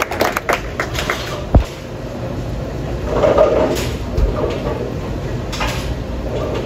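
Bowling alley noise: a few scattered claps in the first second, a single heavy thump about a second and a half in, the loudest sound, and a softer thump later, over a steady low rumble.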